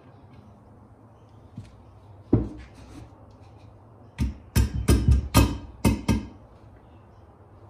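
Ball bearing being tapped down to the bottom of its bore in a heated aluminium two-stroke crankcase half with the butt end of a wooden hammer handle. There is one knock, then a quick run of about seven knocks.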